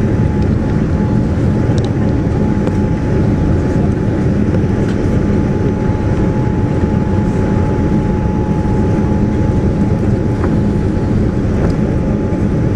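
Airliner cabin noise: a steady, loud rumble of engines and airflow heard from inside the passenger cabin, with a thin steady tone running through it.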